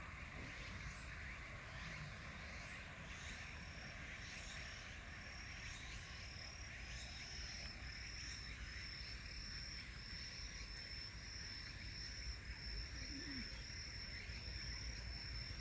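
Insects chirping outdoors at dusk: a shrill chirp repeating about one and a half times a second, starting about three and a half seconds in, over a steady very high insect trill and a low background rumble.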